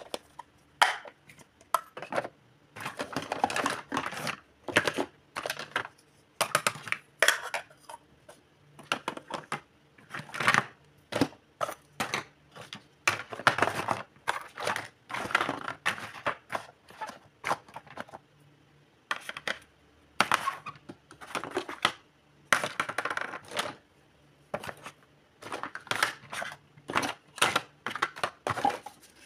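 Hard plastic toy kitchen pieces clattering and clicking against each other as they are picked up, moved and set down, in irregular spells of rattling with short quiet gaps between.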